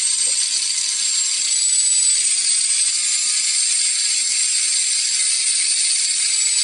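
Small LEGO Technic-type electric motor spinning a wheel with no load, giving a steady high whine and hiss. Its speed and pitch edge up as its supply is turned up from about 10 to 14 volts.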